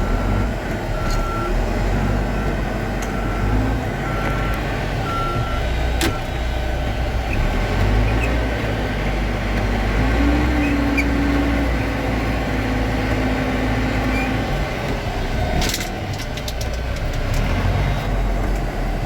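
Caterpillar 420 IT backhoe's diesel engine running steadily as the machine is maneuvered, its reversing alarm beeping repeatedly until about five seconds in. A short cluster of clicks and knocks comes near the end.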